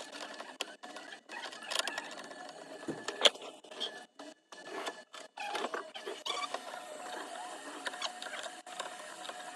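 Close-up handling of a phone and small repair tools: irregular taps, clicks and scrapes with one sharp tap a little past three seconds. About six seconds in, a small machine starts a steady hum.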